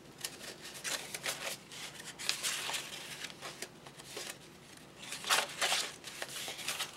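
Folded sheets of eco-printed watercolor paper rustling and scraping against each other as they are slid inside one another to make a signature, in irregular dry strokes with a louder burst about five seconds in.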